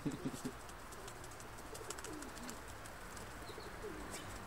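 Domestic pigeons cooing a few times with low, gliding calls, and brief flutters of wings as a bird flaps on an arm.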